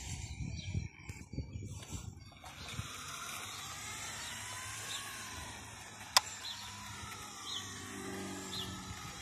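Radio-controlled toy buggy's electric motor whining, its pitch rising and falling twice as the car speeds up and slows down. Small birds chirp repeatedly and a sharp click sounds about six seconds in.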